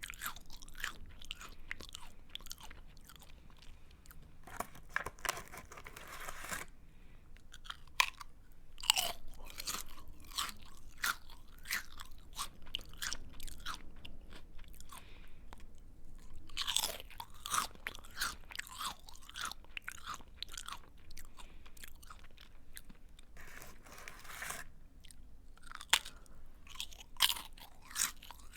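Close-up chewing of a crunchy snack: dense, irregular crisp crunches as it is bitten and ground between the teeth, with two short stretches of steady hiss in between.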